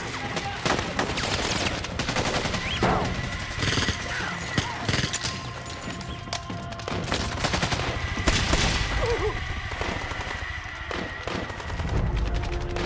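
Film battle gunfire: a continuous fusillade of rapid automatic rifle fire, with many shots overlapping.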